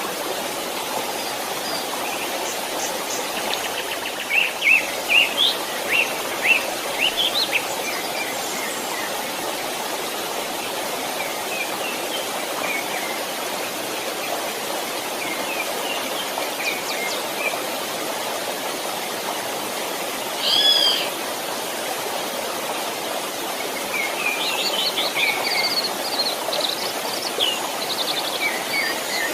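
A small stream running steadily, with birds chirping over it: quick runs of chirps in bursts and one louder call about two-thirds of the way through.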